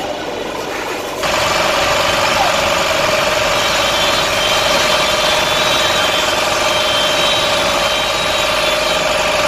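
Fire tender's engine and water pump running steadily, a loud hum over a wide hiss, cutting in abruptly about a second in.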